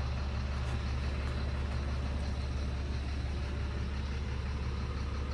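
A steady, unchanging low hum, like an engine idling.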